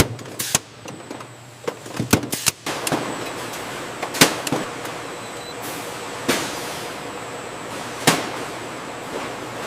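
A series of sharp knocks or clacks, several seconds apart, over a steady hiss that grows fuller about a third of the way in.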